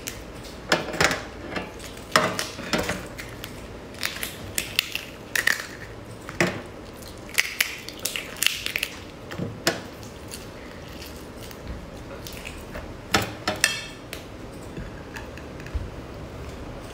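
Shell of a large cooked king prawn cracking and tearing as it is pulled apart and peeled by hand, in irregular clusters of sharp crackles and snaps.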